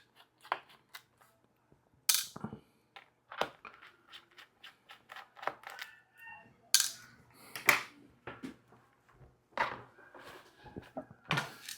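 Irregular sharp clicks and taps of small metal parts: a precision screwdriver working the bottom-case screws of a 2016 MacBook Pro, with the screws and tool set down, a few louder clicks standing out.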